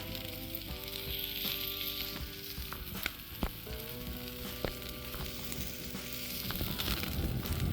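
Steak and pork sausage sizzling on a grill over a wood fire, with a few sharp pops of fat. Soft background music with held notes plays underneath.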